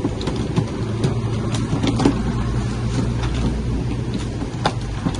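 A steady low motor rumble, heaviest through the middle, with a few scattered light taps.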